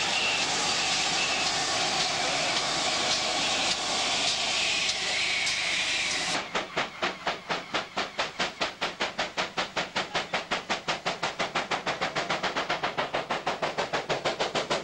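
Steam-hauled train: at first a steady rushing noise as the coaches run close past. About six seconds in it changes abruptly to a steam locomotive's exhaust beats, rapid and even at about four to five a second.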